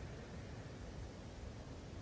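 Faint steady hiss of room tone, with no distinct events.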